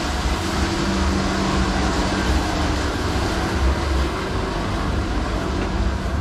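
Busy street ambience: a steady wash of crowd and distant traffic noise over an uneven low rumble, with a faint steady hum underneath.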